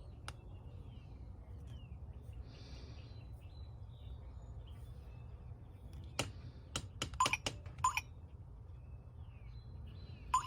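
Sifely smart lock keypad beeping as about six keys are pressed in quick succession, six to eight seconds in. Low steady background hum throughout.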